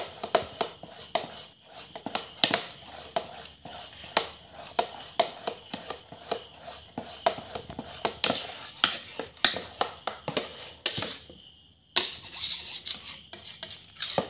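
Metal spoon clinking and scraping against a stainless steel bowl while stirring a thick batter, in quick irregular strokes with a brief pause near the end.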